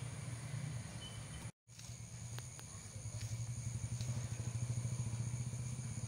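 Low engine rumble of a vehicle running nearby, steady with a fast pulse, swelling louder past the middle. A steady high insect buzz runs underneath. The sound cuts out for a moment about a second and a half in.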